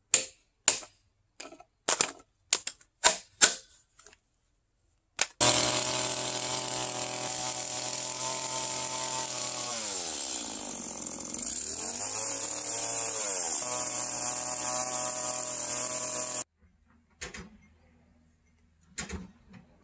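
A run of about seven sharp knocks on timber, then a Stihl two-stroke chainsaw running at high revs. Its pitch sags about ten seconds in and climbs back a few seconds later, and the sound cuts off suddenly, leaving a few faint clicks.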